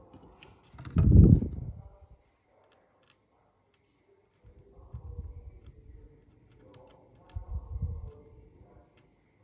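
Handling noise from fine work on a motherboard's CPU socket pins: faint small clicks with three dull low rumbles, the loudest about a second in.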